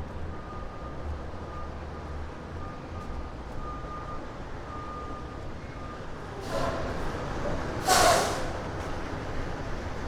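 A heavy truck's reversing beeper sounds in repeated short high beeps over a low engine rumble, then stops. Two hisses of air-brake air follow, the second near the end much louder.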